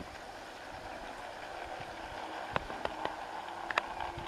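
ETS tinplate model locomotive and goods wagons running along garden-railway track: a steady whirring rattle, with several sharp clicks of the wheels over rail joints from about halfway through.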